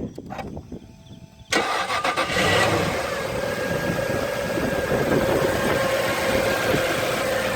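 Jaguar XK8's V8 engine being started: after a short quiet stretch it catches suddenly about one and a half seconds in and then runs steadily.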